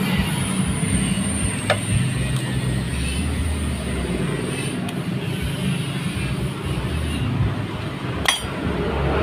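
Steady low drone of workshop background noise, with two sharp metallic clinks, one about two seconds in and one near the end, as a scooter's centrifugal clutch shoe assembly and loose metal parts are handled.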